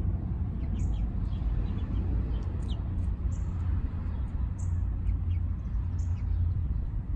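Young chickens peeping in short, high, scattered chirps over a steady low rumble.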